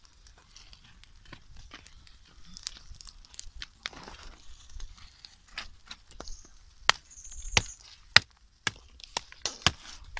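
Small open twig fire crackling, with sharp irregular pops and cracks, several louder snaps in the second half, while snails roast in its embers.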